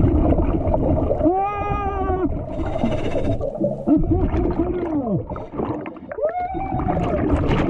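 Scuba diver's voice muffled through the regulator underwater: three drawn-out vocal sounds, each rising and then falling in pitch, over a rumble of breathing and bubbles, with a short hiss of an inhale from the regulator in the middle.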